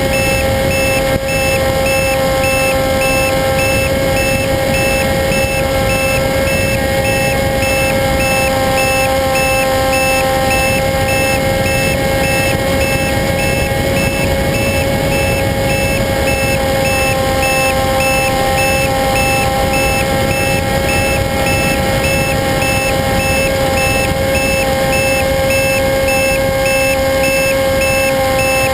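RC airplane's motor and propeller running at a steady throttle: a constant whine over a rush of wind noise, with no change in pitch.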